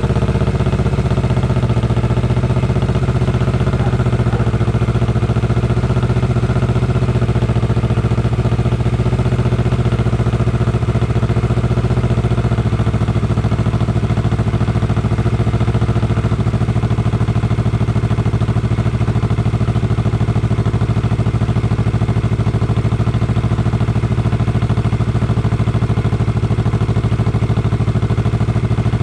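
Kawasaki Vulcan S 650's parallel-twin engine idling steadily through an aftermarket Orion full-system exhaust.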